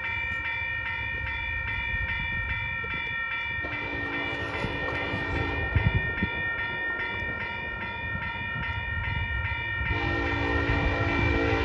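Grade-crossing warning bell ringing steadily while an approaching train's locomotive horn sounds two long blasts, the second starting about ten seconds in and still sounding at the end: the horn warning for the crossing.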